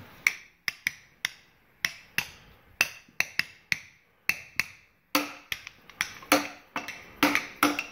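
Wooden spoon tapping on a hollow tube as a makeshift drum: about twenty sharp wooden knocks in an uneven rhythm, some with a short hollow ring. There is a brief break just past the middle, and the knocks come quicker after it.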